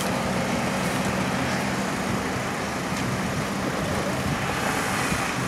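Steady road traffic: cars and vans driving past on a busy multi-lane road, an even mix of engine and tyre noise.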